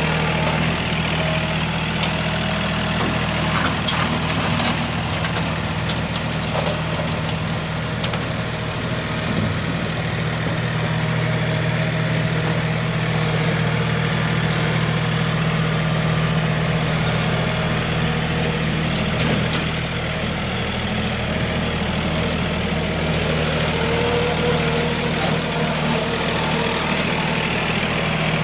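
An engine running steadily at an even speed, with a deep, constant hum.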